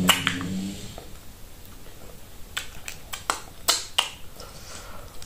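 Scattered sharp knocks and clicks from renovation work, several in quick succession between about two and a half and four seconds in.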